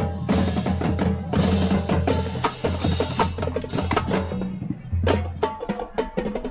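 High school marching band playing, with the drums and percussion loudest: rapid, rhythmic strokes over sustained low notes.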